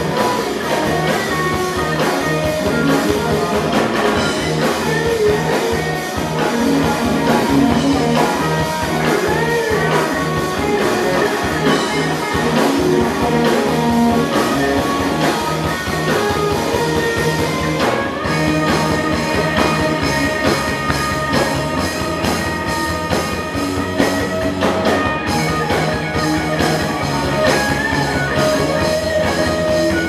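Live rock band playing loud and continuous: electric guitars over a full drum kit.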